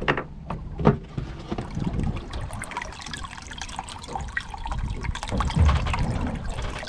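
Water running into a plastic live-well tub holding cuttlefish, splashing and trickling from the inlet pipe. A couple of sharp knocks come near the start, and the water grows louder a little past halfway.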